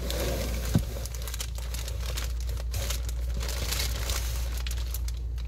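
Close, continuous crinkling and rustling, with a light knock just under a second in.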